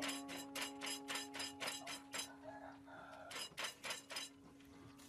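Wooden pestle pounding in a clay mortar, about four quick knocks a second, with a short pause about halfway through before the pounding resumes. A steady ringing tone is heard behind it and fades away over the first three seconds.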